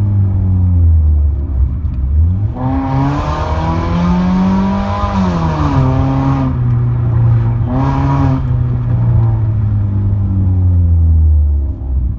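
Maruti Suzuki Ciaz with an aftermarket exhaust, heard from inside the cabin while driving: a loud low exhaust drone that rises in pitch as the engine revs up a couple of seconds in, falls back, revs briefly again about two-thirds through, then settles back to a low drone.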